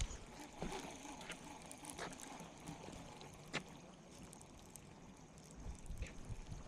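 Faint water lapping and trickling, with a few light clicks and soft knocks.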